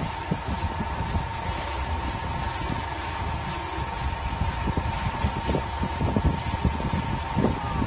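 Flat pan-type forced concrete mixer running: a steady mechanical hum with a constant whine, and irregular knocks that grow more frequent near the end.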